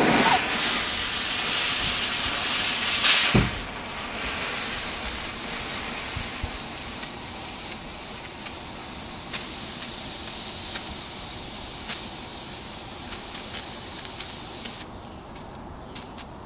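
Fireworks time fuse, wrapped in foil tape and hot glue, hissing loudly for the first three seconds or so as its open end is lit. It then burns with a steadier, quieter hiss and a scattering of small crackles as it vents hot gases out of the lit end. The hiss drops away about fifteen seconds in.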